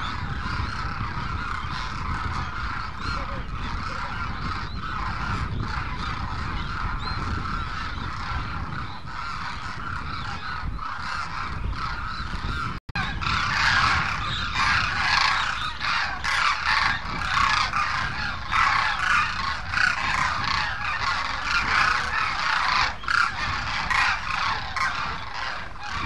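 A large flock of demoiselle cranes calling together, a dense, continuous chorus of honking calls. About halfway through, after a brief cut, the chorus becomes louder and closer.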